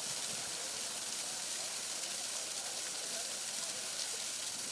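Water pouring steadily from a supply pipe into a well, a constant rushing noise.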